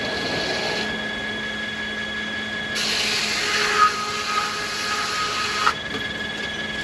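Sawmill machinery running with a steady whine. About three seconds in, a saw cuts through American beech, a louder hissing cut with a held tone that stops abruptly about three seconds later.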